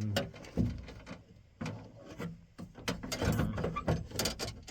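Irregular clicks and metallic knocks from the door latch and its rod being shifted around by hand inside a pickup truck's door, as the rod is worked back into place.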